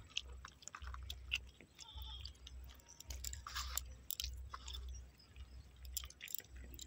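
Faint, irregular wet clicks, squelches and scrapes of freshwater pond mussels being handled and shucked, the shells clicking together as the firm meat is pulled from them by hand. A low rumble comes and goes underneath.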